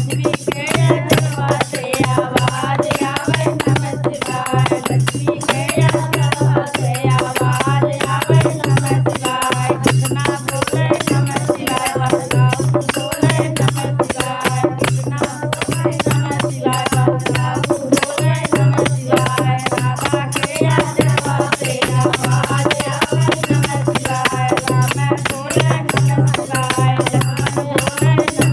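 Devotional bhajan music with a fast, steady rattling percussion beat over a low drone and a melody.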